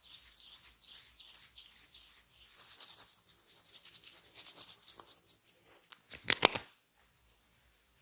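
Hands rubbing quickly over skin during a face and head massage, a fast hissy friction of many short strokes. About six seconds in, three or four sharp, loud snaps follow in quick succession.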